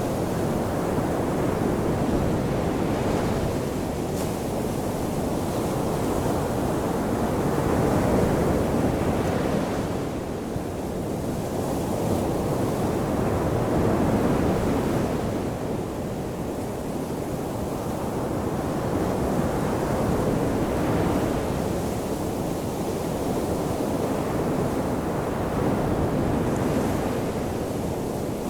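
Ocean surf washing onto a shore: a continuous rushing wash that swells and eases about every five or six seconds as waves break and run up.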